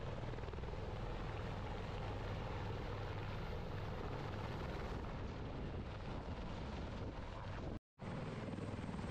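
UH-1Y Venom and AH-1Z Viper helicopters' twin-turbine engines and rotors running as they come in to land, a steady dense rotor and turbine noise with a fast low beat. The sound drops out for an instant near the end and resumes much the same.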